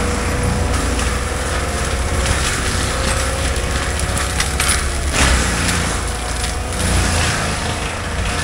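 Compact track loader fitted with a forestry mulcher running steadily as it pushes into brush and small pine trees, with wood cracking and splintering about halfway through.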